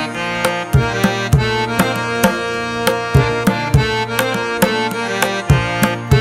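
Background music: a steady hand-drum beat, about two strokes a second, under a held reed-like melody.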